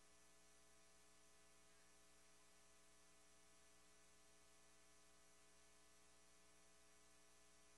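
Near silence: only a faint, steady hum with a low hiss.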